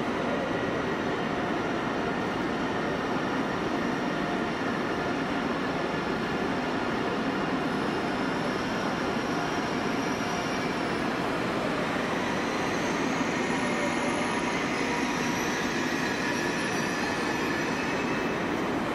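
ICE 3 high-speed train rolling slowly into a platform: a steady running noise with faint, high wheel-squeal tones that drift in pitch.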